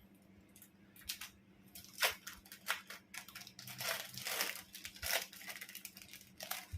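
Plastic packaging crinkling and tearing as cheese is taken out of its wrapper: a run of irregular rustles and crackles.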